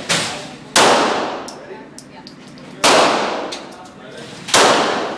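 Three 9mm Beretta pistol shots, about two seconds apart, each followed by a long echoing decay off the walls of an indoor range. A lighter bang comes right at the start, and faint clinks fall between the shots.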